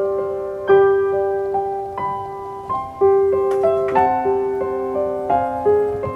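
Background music: a gentle piano tune, single notes struck and left to ring and fade.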